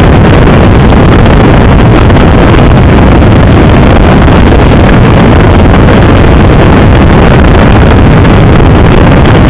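Loud, steady, distorted rushing noise of a Bixler 2 model plane's electric pusher motor, propeller and airflow in flight, picked up by the onboard FPV camera's microphone and sent over an analog video transmitter, which dulls the highs.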